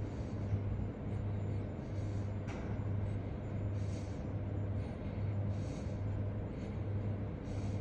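Steady low hum under a soft hiss: the room tone of an indoor waiting area.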